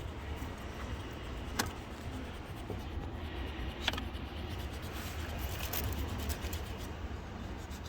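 Handling noise from working under the car: a steady low rumble with two sharp clicks, about one and a half and four seconds in.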